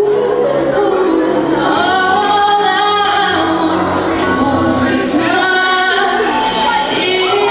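A song with female vocals playing over music.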